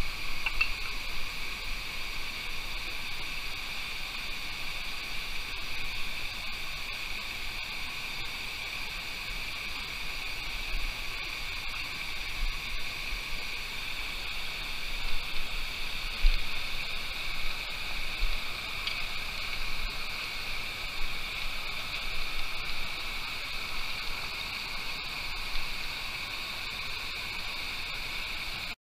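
Shallow mountain stream rushing over rocks and a small cascade: a steady hiss of running water, with a few brief low bumps about halfway through.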